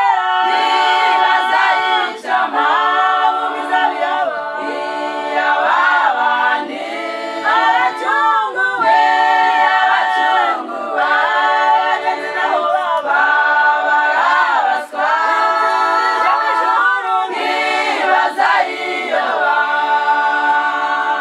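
A cappella choir singing a song, several voices holding sustained notes in harmony with no instruments.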